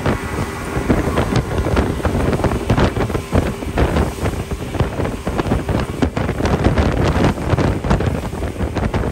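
Outboard motorboat running fast across open water: heavy wind buffeting on the microphone over the rush of spray and wake. The noise swells up in the first second and then stays loud and gusty.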